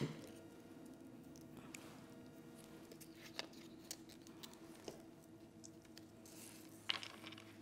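Quiet room tone with a faint steady hum, broken by a few soft scattered clicks and taps of paint supplies and a brush being handled on the work table, and a slightly louder brief rustle near the end.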